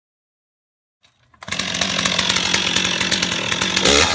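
Chainsaw running, cutting in abruptly about a second and a half in and holding a steady pitch, then near the end its pitch starts to swing up and down as it is revved.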